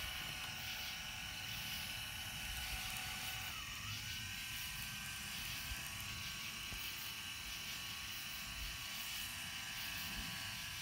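Celestron Astro Fi telescope mount's drive motors slewing to a go-to target: a steady electric whine. It dips briefly and climbs to a slightly higher pitch about three and a half seconds in, then holds.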